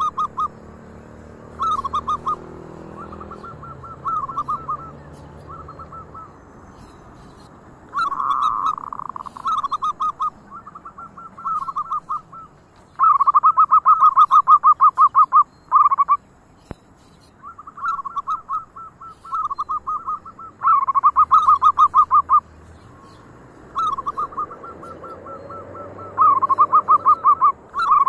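Zebra doves (perkutut) cooing: repeated phrases of quick rolling coo notes, some loud and close, others fainter, with several birds calling in turn and overlapping.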